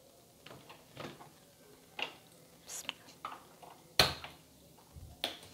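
A few separate clicks and light knocks at irregular intervals, the loudest about four seconds in: a kitchen stove being switched on, with utensils handled beside it.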